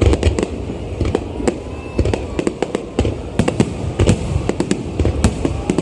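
Fireworks finale barrage: a rapid, continuous run of overlapping booms and sharp cracks, several bursts a second.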